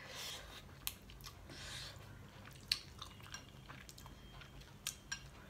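Faint chewing of a mouthful of soft ramen noodles, with a few short, sharp clicks scattered through it.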